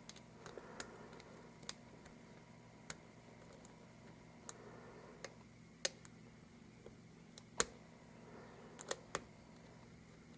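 Single-pin picking of an Abus 83/45 lock: about a dozen small, sharp, irregular metallic clicks of the pick and tension wrench working the pin stacks, with brief soft scraping between them.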